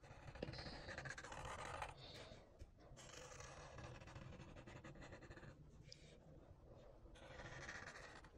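Sharpie felt-tip marker drawing on paper: a faint scratchy rubbing in several long strokes with short pauses between them.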